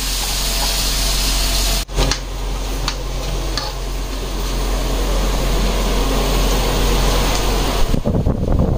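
Food sizzling and simmering in metal kadhai woks over a wood-fired clay stove, with a ladle stirring, over a steady low hum. The sound breaks off briefly about two seconds in, and irregular low rumbling comes in near the end.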